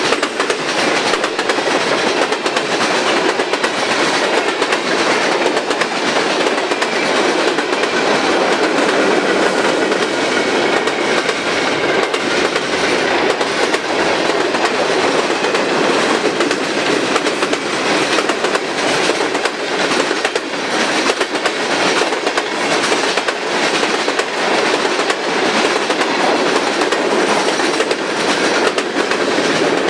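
Loud, steady rumble of freight cars — tank cars, boxcars and covered hoppers — rolling past at speed, the wheels clicking over the rail joints.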